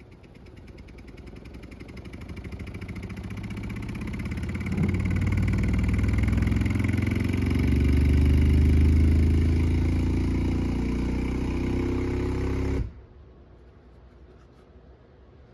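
Stacked Sundown Audio 18-inch neodymium subwoofers playing deep bass at high volume, building up over the first five seconds and then cutting off abruptly about thirteen seconds in.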